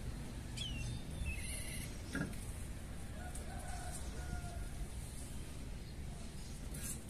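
Faint bird calls from a pen: a few short chirps in the first two seconds and a lower drawn-out call in the middle, over a steady low rumble, with a soft knock about two seconds in.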